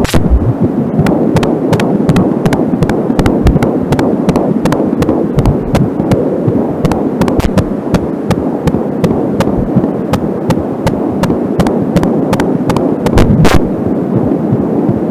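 Fetal heartbeat picked up by an Angelsound handheld fetal doppler at 13 weeks of pregnancy: a fast pulsing beat, about two and a half beats a second, over a steady loud hiss. A brief crackle of static breaks in near the end.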